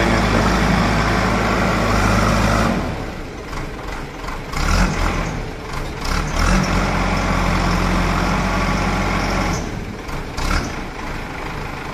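JCB backhoe loader's diesel engine running, with its note changing about three seconds in and again near ten seconds.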